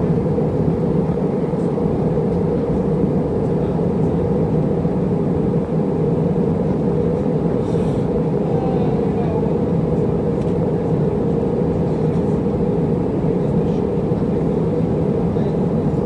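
Airbus A319 cabin noise in flight: the steady drone of airflow and the CFM56 engines, heard from a window seat, with a faint tick now and then.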